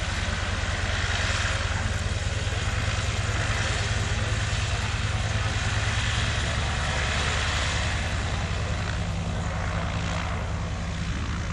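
Antonov An-2 biplane's nine-cylinder radial engine running at taxiing power while the aircraft rolls across grass, growing a little fainter after about eight seconds as it turns away.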